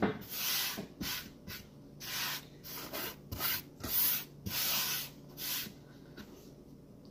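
A utensil stirring and scraping in a bowl of slime mixture: a run of about a dozen short, irregular scraping strokes that stop about a second before the end.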